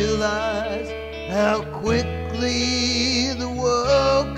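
A man singing with guitar accompaniment over sustained low bass notes, which change pitch about two seconds in and again near the end.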